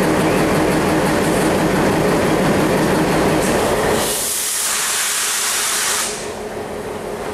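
Diesel locomotive engine running with a steady drone as the train pulls out. About four seconds in, a loud hiss of air cuts in for about two seconds, and the engine sound is quieter after it.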